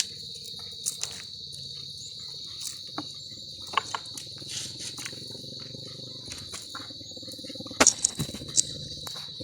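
Steady high-pitched insect chirring, with scattered short clicks and knocks and a louder cluster of sharp clicks about eight seconds in.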